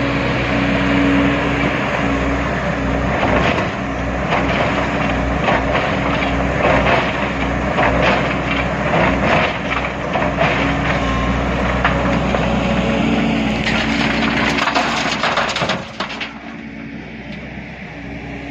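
Excavator diesel engine running steadily under a clatter of rocks knocking, crashing and scraping, as boulders are loaded into a dump truck. The clatter stops about sixteen seconds in and the sound drops quieter.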